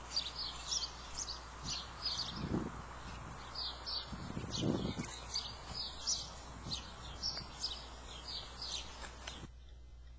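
Small birds chirping outdoors: many short, quick, high chirps from several birds overlapping, over steady outdoor background noise, cutting off suddenly near the end.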